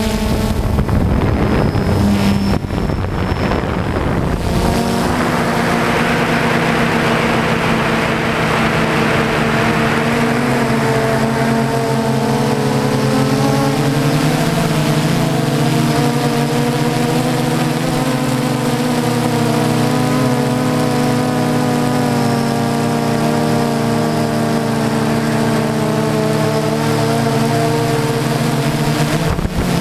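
Propellers and motors of a DJI Phantom quadcopter running steadily in flight, heard close up from its onboard camera: a many-toned hum whose pitch shifts slightly as the motors change speed. A rushing hiss swells and fades between about five and eleven seconds in.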